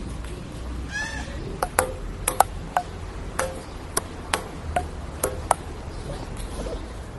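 Table tennis ball being hit back and forth, clicking on paddles and the outdoor table in sharp hollow pocks, about two hits a second.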